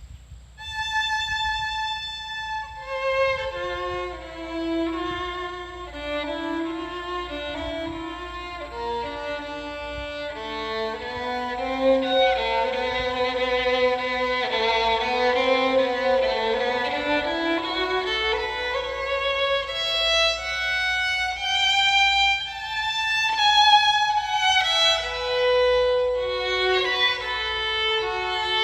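A new violin, not yet broken in and made in Romania, played solo in a slow melody of sustained bowed notes, some dipping low on the lower strings and some with two notes sounding together. It has a smooth, mellow, dark tone.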